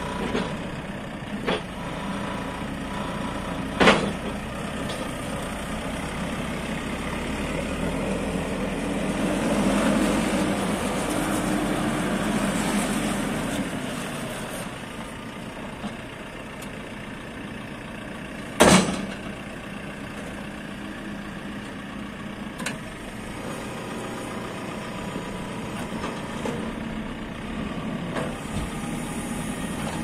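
JCB 4CX backhoe loader's 81 kW diesel engine running steadily, growing louder for several seconds in the middle before settling back. Two sharp clunks stand out, about four seconds in and again near nineteen seconds.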